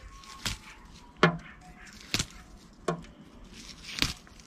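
Hop flowers being picked off the vine and dropped into a plastic tub: five sharp taps and knocks, about one a second.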